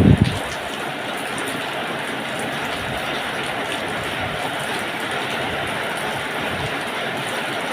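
Heavy rain pouring steadily in a strong wind, with low gusts of wind buffeting the microphone at the very start.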